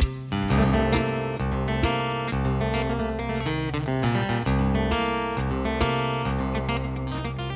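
Instrumental acoustic guitar in an alternate tuning, quick plucked and strummed notes ringing over low bass strings.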